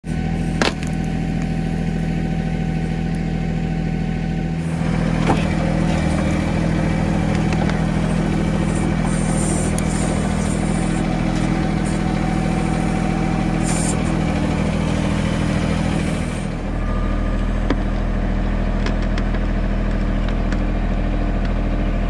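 Mahindra 1626 compact tractor's three-cylinder diesel engine running steadily while its backhoe digs out a stump. The engine note changes a few seconds in and again near the end, with a few sharp knocks.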